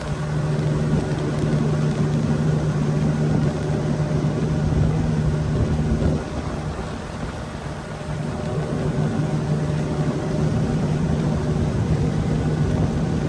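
Small boat's outboard motor running steadily under way, with wind and water noise. The level dips briefly about six seconds in.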